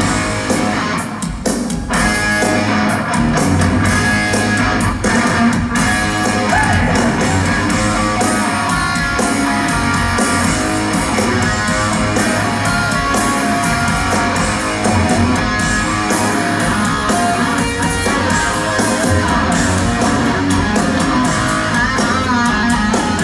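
Live rock band playing: loud distorted electric guitar over bass guitar and a drum kit, steady and continuous.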